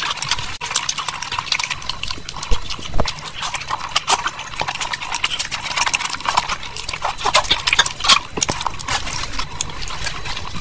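Close-miked eating sounds: quick, irregular wet clicks and smacks of chewing, mixed with the sticky squish of fingers working through thick meat curry and rice.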